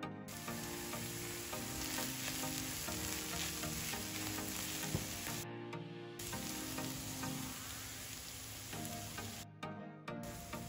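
Ground beef with chopped onion and peppers sizzling in a nonstick frying pan while a silicone spatula stirs it. The sizzle drops out briefly twice, once near the middle and once near the end.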